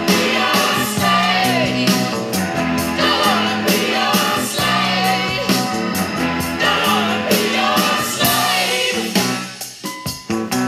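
A song with a singer and guitar playing loudly through the speakers of a Sanyo MX-650K boombox. The music drops in loudness briefly near the end.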